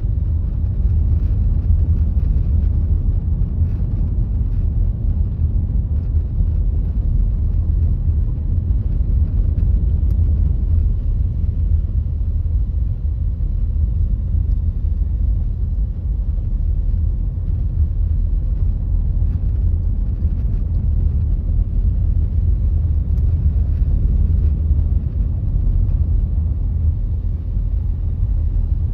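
A car driving at a steady pace: continuous low road and tyre rumble with engine noise underneath, even throughout with no distinct events.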